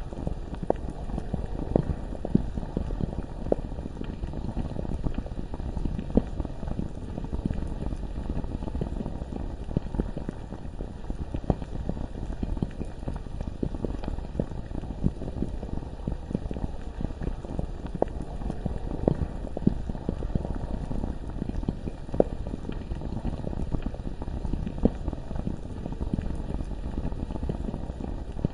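Bubbling lava ambience: a steady, deep bubbling with frequent small pops and now and then a louder one.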